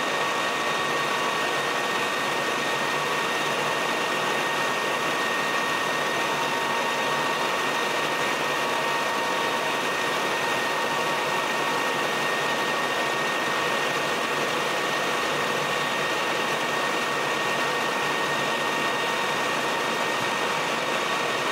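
Colchester Master 2500 lathe running steadily under power feed while a turning tool takes a cut along an aluminium shaft held between centres. A constant machine hum with a thin steady whine, played back at double speed.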